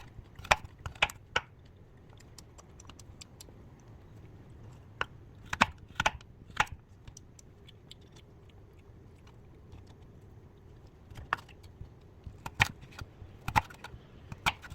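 Sharp taps and clicks in short clusters: a few in the first second or so, another group in the middle, and more near the end, with quiet room tone between.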